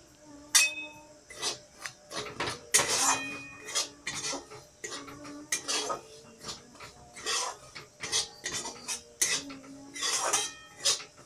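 A stirring utensil scraping and knocking against a metal kadai in repeated strokes, about one or two a second, some with a brief metallic ring. Dry semolina is being stirred constantly while it dry-roasts so it doesn't burn.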